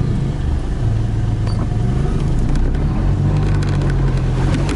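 Toyota Hilux engine running while driving off-road, its revs dipping and rising a little. Scattered sharp clicks and knocks join in during the second half.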